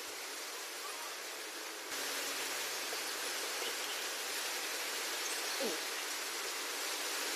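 Steady hiss of background noise that gets louder about two seconds in, with one short falling call a little past halfway.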